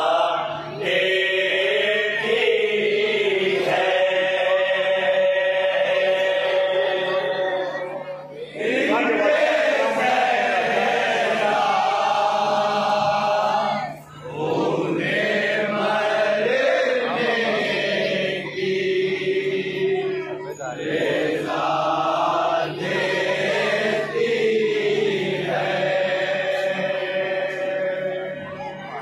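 A group of men chanting a nauha, a Shia lament, together into a microphone, in long held lines broken by short pauses between phrases.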